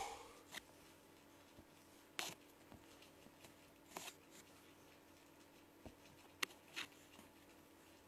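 Near silence: room tone with a faint steady hum and a few faint, brief clicks scattered through it.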